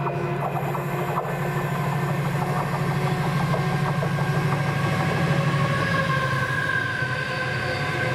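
Colas Rail Class 70 diesel locomotive with its GE PowerHaul V16 engine approaching on the line. It makes a steady low engine drone with higher whining tones above it, growing louder as it nears.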